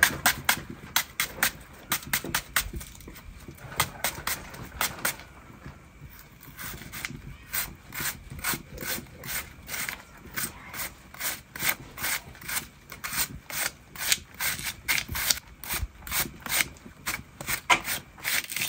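Kitchen knife cutting a peeled white onion held in the hand, a run of short crisp cuts at about three a second, with a brief lull about six seconds in.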